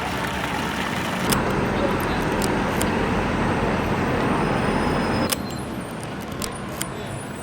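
Busy city street ambience: road traffic running steadily with indistinct voices, and a few sharp clicks. The level drops abruptly about five seconds in.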